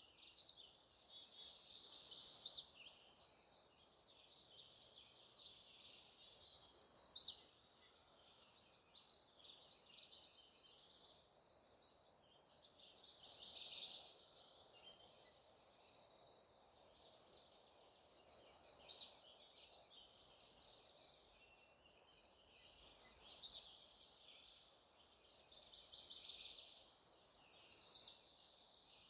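Wild songbirds singing: a loud, fast-trilled song phrase of about a second comes six times, roughly every four to five seconds, over a continuous fainter chorus of other birds.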